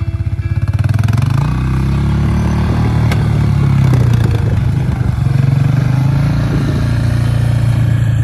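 Small engine of a snow-clearing machine revving up about a second in, then running steadily at high revs.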